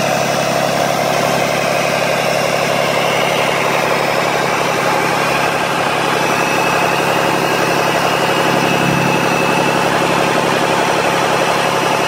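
Freshly overhauled Cummins QSB5.9 inline-six diesel engine running at a steady idle with an even firing pulse.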